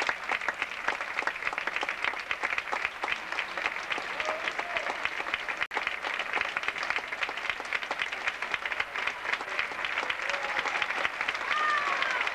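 Theatre audience applauding, a dense run of many hands clapping, broken off for an instant about six seconds in. A few voices call out over the clapping near the end.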